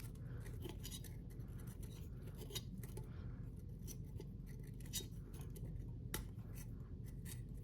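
Wires being fed through a ceiling fan's down rod: faint scattered clicks and scrapes of the leads rubbing and tapping against the rod and its pin.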